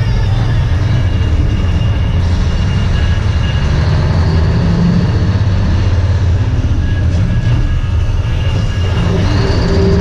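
Dump truck's diesel engine running steadily under way, with the rumble of the drive heard from inside the cab.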